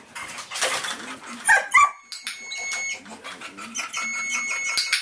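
A German Shepherd moving about and making small vocal sounds, with two sharp knocks about a second and a half in. From about two seconds in, a high electronic beep sounds twice, each about a second long.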